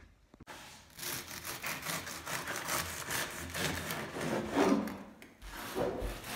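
A bread knife sawing back and forth through a crusty seeded loaf on a wooden bread board: a run of rasping strokes that starts about half a second in.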